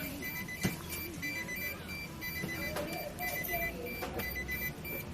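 Rapid electronic beeping in a steady repeating pattern of short high beeps, like an alarm clock, with a single sharp click about two-thirds of a second in.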